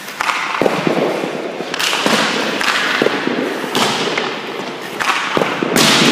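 Hockey pucks shot at a goalie with a stick: a series of sharp cracks from stick hitting puck and puck striking the goalie, several a second or so apart, each with a long echo off the ice rink.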